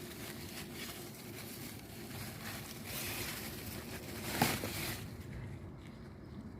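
Rustling and handling among zucchini plants as the vegetables are picked, with a short louder sound about four and a half seconds in; it goes quieter after about five seconds.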